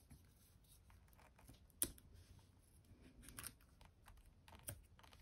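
Near silence with a few faint clicks and taps, the sharpest about two seconds in, from a pen-style pick tool lifting foam adhesive dimensionals off their backing sheet and pressing them onto a die-cut paper piece.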